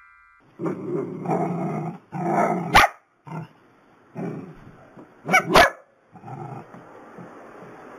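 A dog growling and barking in short, irregular stretches, with three sharp knock-like clicks, the loudest sounds, near the middle.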